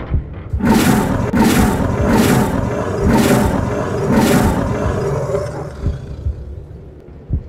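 Dubbed lion roar sound effect: five loud roars in a row, about three-quarters of a second apart, then fading away over the next few seconds.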